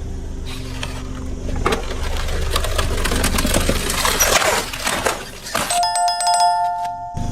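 Car tyre rolling over and crushing objects, with a low engine hum and a spell of dense crackling and crunching in the middle. Near the end the crackling gives way to a bell-like electronic ringing of several steady tones that lasts about a second and a half and then cuts off.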